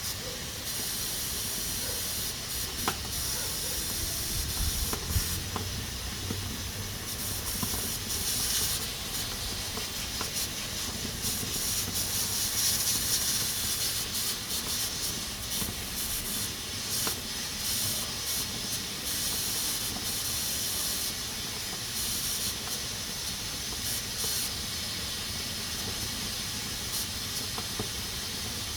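Pressure cooker hissing as steam escapes from its valve: a steady high-pitched hiss that swells and eases in strength, with a couple of faint clicks a few seconds in.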